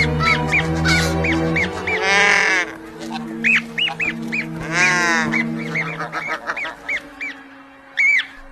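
Birds calling: a rapid run of short, high calls, about two a second, broken by two longer, drawn-out calls about two and five seconds in. The calls thin out near the end.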